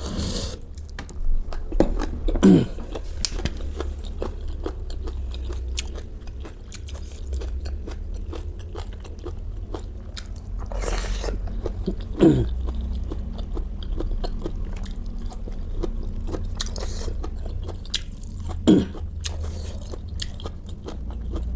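Close-miked chewing and crunching of food, with many small wet clicks and smacks throughout. A breathy rush comes about eleven seconds in, and three brief low falling sounds come from the mouth.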